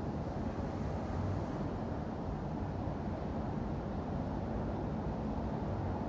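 Steady low rumble of city street traffic, with no single vehicle or event standing out.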